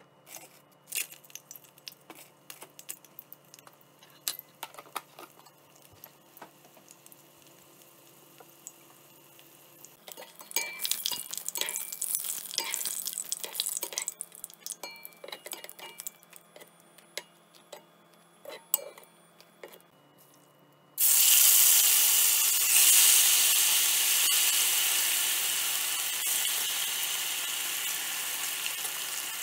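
Dried red chilies crackling and popping in hot vegetable oil, with metal tongs clicking against the pot as they are turned. About two-thirds of the way through, marinated chicken thigh pieces go into the oil with a sudden loud sizzle that slowly eases off.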